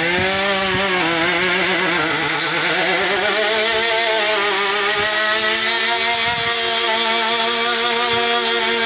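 An engine running at a steady, fairly high speed, its pitch wavering slightly.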